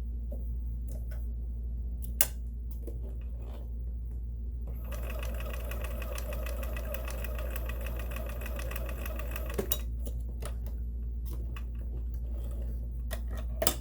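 Domestic sewing machine sewing a test seam, speeding up to a fast, even stitching rhythm for about five seconds in the middle before slowing again, with a couple of sharp clicks from the machine. The test checks whether the stitch still comes out loose with the bobbin-case tension as set.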